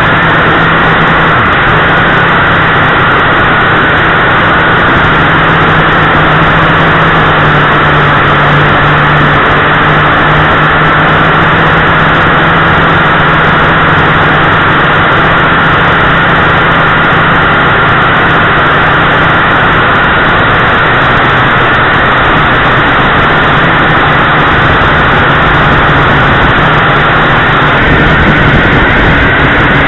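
JRC H8C quadcopter's four motors and propellers whirring steadily in flight, recorded loud and close by its onboard camera: a steady low hum and a higher whine over a rushing wash of prop noise.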